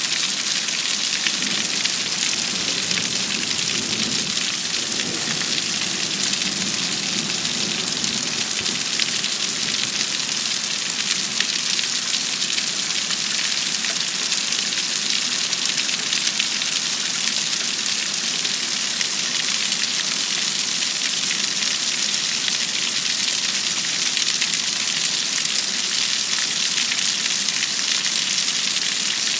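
Heavy rain falling steadily in a thunderstorm, a dense, even hiss, with a low rumble in the first several seconds.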